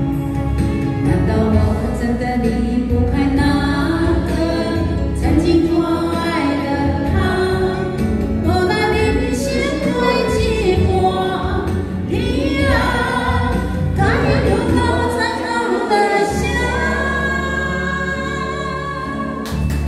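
A woman singing a song into a handheld microphone over a backing track, the accompaniment's bass dropping out briefly near the end.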